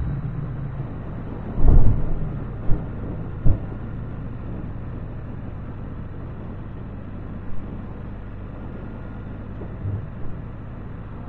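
Can-Am Spyder roadster cruising at light throttle: a steady low engine drone mixed with wind and road noise. A few dull thumps come about two and three and a half seconds in.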